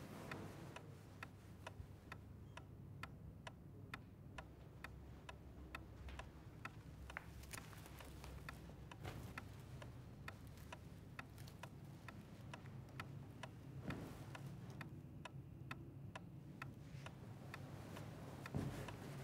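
A clock ticking steadily, about two ticks a second, over a low steady hum, with a soft knock near the end.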